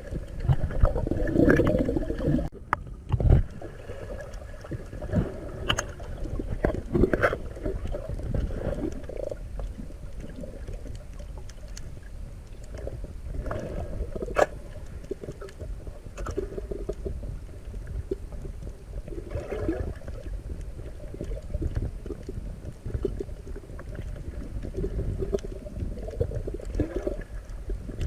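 Muffled water rumble and gurgling, with scattered sharp clicks and knocks, the heaviest of them in the first few seconds, as picked up through an underwater camera housing on a freediving spearfishing dive.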